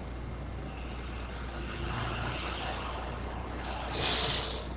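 A low steady hum under faint background noise. About four seconds in comes a man's loud hissing breath, lasting under a second, as he comes out of hypnosis.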